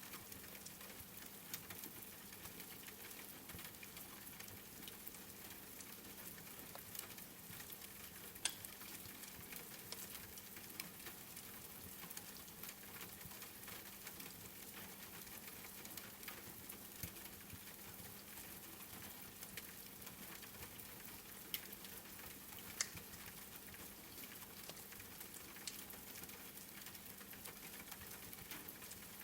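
Wood fire crackling in a fireplace over a steady hiss of rain, with scattered sharp pops, two of them louder: about eight seconds in and about twenty-three seconds in. A faint low hum runs underneath.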